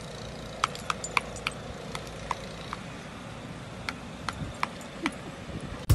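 Irregular light metallic ticks, a few a second, from a metal kinetic wind spinner turning on its pole, over a steady background hiss.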